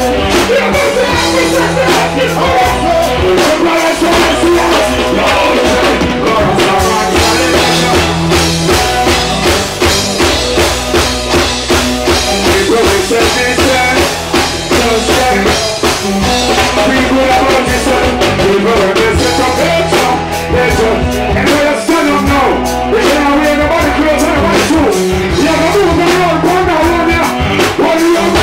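Loud reggae music from a band, with a steady bass line and drum kit and a singer's voice over it.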